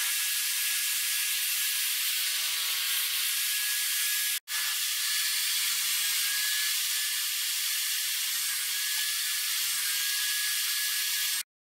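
Bench drill press running, a steady hiss, as it drills a row of holes in plywood. The sound cuts out briefly about four and a half seconds in and stops just before the end.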